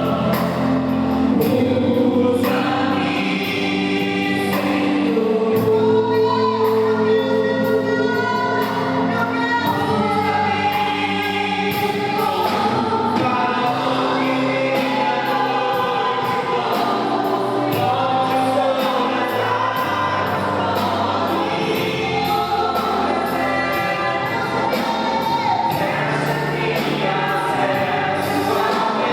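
Gospel worship music: a group of voices singing a hymn in sustained phrases over steady instrumental accompaniment.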